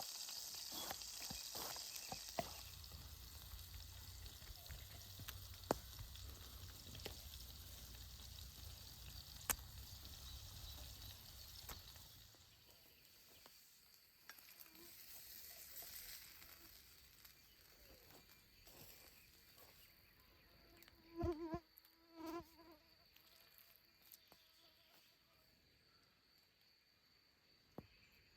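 Faint sizzling of food frying over a camp fire, with scattered sharp clicks and crackles, fading away after about twelve seconds. Two short pitched sounds come about three quarters of the way through.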